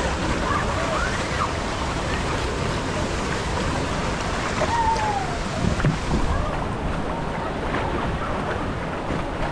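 Steady rush of water along a water-park tube slide.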